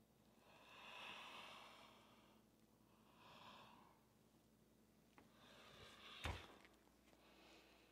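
A person breathing audibly in slow breaths. About six seconds in, a single thump as bare feet land on a yoga mat after hopping forward from downward dog.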